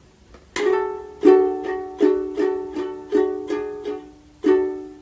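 Ukulele strumming a D chord, played with an alternative fingering, about eight strums at a moderate, slightly uneven pace, the last chord left to ring.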